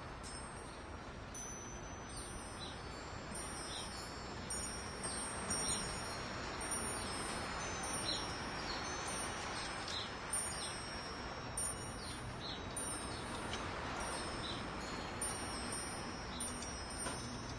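Wind chimes ringing, struck irregularly about every second, their high tones ringing on and overlapping over a steady soft hiss.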